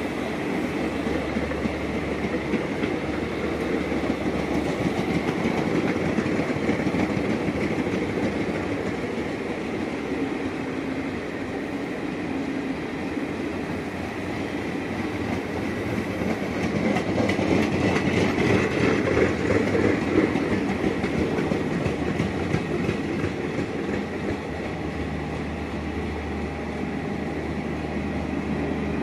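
Garib Rath Express AC sleeper coaches rolling past on the track: a steady rumble and rattle of wheels on rails, growing louder for a few seconds about two-thirds of the way through.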